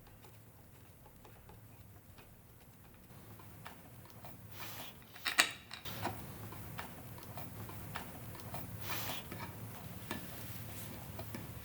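Faint ticking and clicking of two bolts being unthreaded by hand, starting a few seconds in, with a sharper click about five seconds in.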